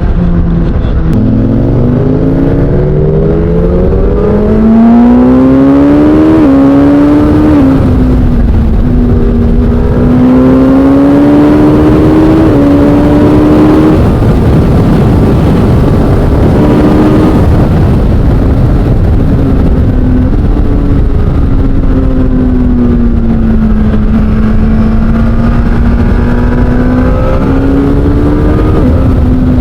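Suzuki GSX-S1000 inline-four with an SC-Project aftermarket exhaust, heard on the move. The revs climb for the first several seconds, drop at shifts about six and seven and a half seconds in, then rise and fall at cruising speed.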